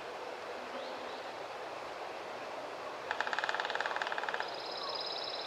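A wild animal's rapid pulsed trill, a little over a second long, starts about three seconds in over a steady outdoor hiss. A thin, high, steady whistle follows near the end, with faint short chirps.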